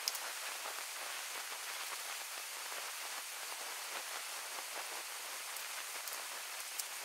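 Steady rain, an even hiss with a few faint ticks.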